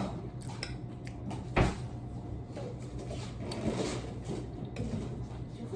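Quiet household clatter with one dull knock about a second and a half in and a few fainter clicks.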